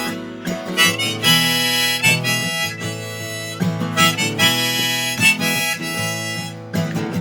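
Harmonica playing a melody over strummed acoustic guitar, in an instrumental break of a folk song.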